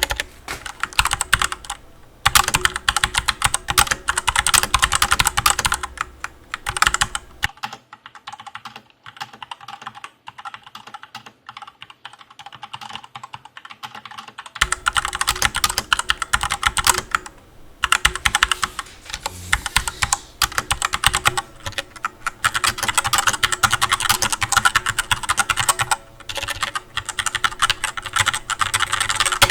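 Continuous fast typing on a Redragon Kala mechanical keyboard with brown switches: a dense, irregular clatter of key presses. It goes softer and thinner from about 7 to 15 seconds in.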